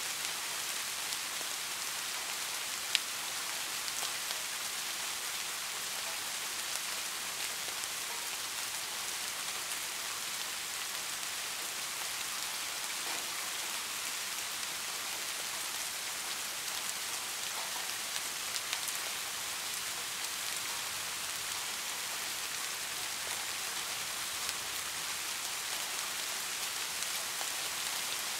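Heavy rain falling steadily: a dense, even hiss with scattered taps of single drops. One sharper tick comes about three seconds in.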